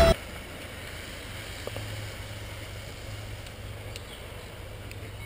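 Quiet outdoor background: a low steady hum with faint hiss and a couple of faint clicks, with no distinct event.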